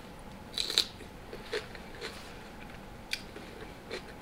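A person eating close to the microphone: short, crisp bites and chewing sounds, five or six separate clicks and crunches with the loudest pair just under a second in.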